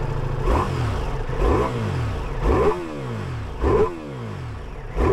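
Ducati Multistrada V4 Pikes Peak's V4 Granturismo engine idling and blipped on the throttle about once a second, four quick revs that each rise sharply and drop back to idle, with a fifth starting at the end.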